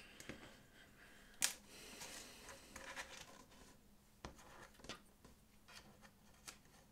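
Faint handling sounds: a few light clicks and taps as small dollhouse skirting-board pieces are fitted into place by hand, the sharpest click about a second and a half in.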